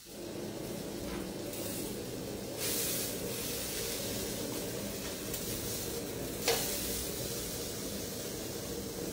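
Boiled octopus tentacle sizzling as it roasts in a little oil in a nonstick frying pan. The sizzle briefly gets louder about three seconds in, and there is a short knock about six and a half seconds in.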